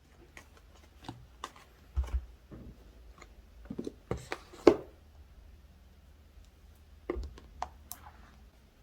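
Hands handling an Apple Watch 7 and its strap while putting it on: a series of small clicks and taps with some light rubbing. The loudest tap comes about halfway through, and a few more clicks follow near the end.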